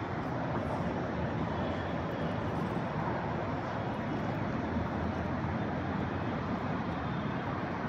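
Steady outdoor city background noise: an even hum of distant traffic.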